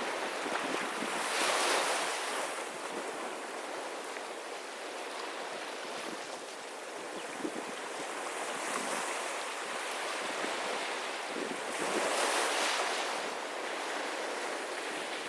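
Small sea waves washing onto a beach, with the surf swelling twice, about two seconds in and again about twelve seconds in.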